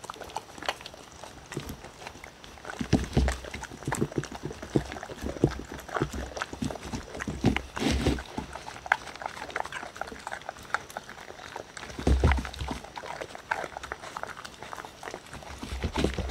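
Two dogs eating chopped food from wooden bowls: rapid wet chewing, smacking and licking, with many clicks of teeth and muzzles against the bowls. There are a few dull thumps about 3, 8, 12 and 16 seconds in.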